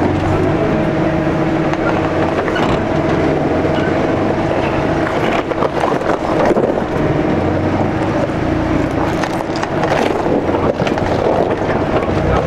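A 4x4's engine running steadily under load as the vehicle crawls over rock, with short crunches and clicks from the tyres on loose stones.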